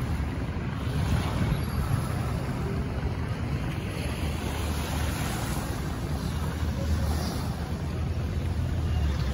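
Wind buffeting the microphone by the sea: a steady low rumble with a fainter hiss of water over it.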